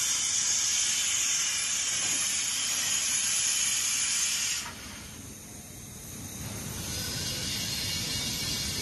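Pressurised gas venting at a cylinder filling head: a loud hiss that starts suddenly and cuts off abruptly after about four and a half seconds. A lower rushing of churning water follows and builds near the end.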